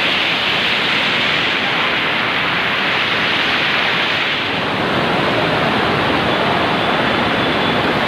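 Stream water rushing steadily over rocks in a small waterfall cascade, heard close by and loud.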